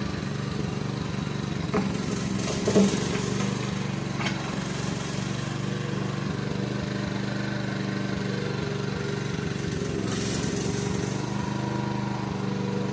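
Small engine running steadily at a constant speed, with a few brief knocks about two to four seconds in.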